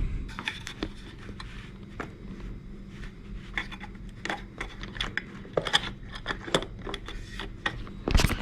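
Scattered light clicks, taps and scrapes of a wall clock's case and parts being handled and fitted back together, with a louder knock near the end.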